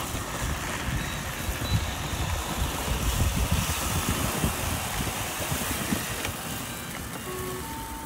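Four robot vacuum cleaners running together: a steady whir of suction fans and brushes, with an uneven low rumble underneath.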